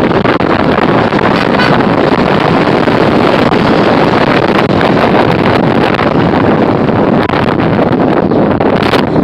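Loud, steady wind rush buffeting a phone microphone while riding on a motorbike, with the road and vehicle noise of the ride underneath.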